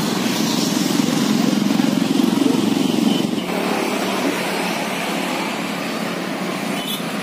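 Road traffic passing close by, with a motorcycle engine going past in the first three seconds or so, then a steady background of traffic noise.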